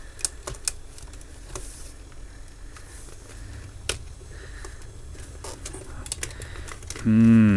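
Scattered light clicks and taps as fingers press and flex the edge of an opened LCD TV panel, over a faint low hum. Near the end a man makes a short wordless vocal sound.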